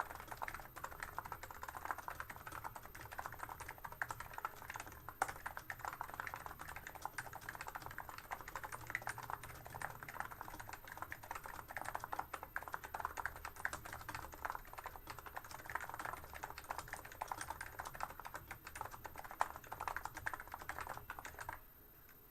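Fast continuous typing on a Plum 87 electro-capacitive keyboard with 35 g switches: a dense stream of key strokes during a speed typing run, which stops abruptly near the end.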